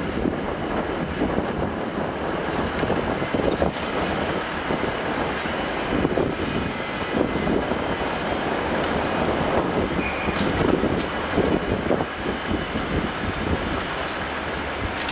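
Demolition excavator working: its diesel engine running steadily under load while the hydraulic crusher jaw bites into the concrete wall, with irregular crunching and breaking of concrete and debris.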